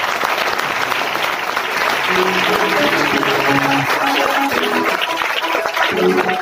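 Audience applauding, with music starting about two seconds in and playing under the clapping.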